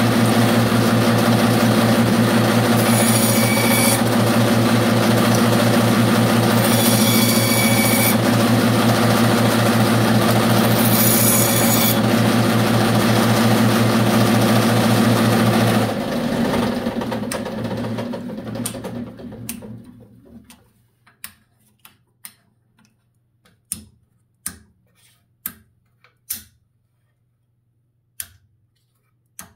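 Bandsaw running steadily, switched off about halfway through and winding down over a few seconds. Then small wooden blocks click against each other and the metal table as they are picked up and stacked by hand.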